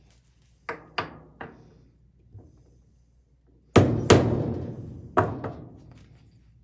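A series of sharp knocks: three quick ones about a second in, then two heavy blows close together past the middle that fade out slowly, and one more a second later.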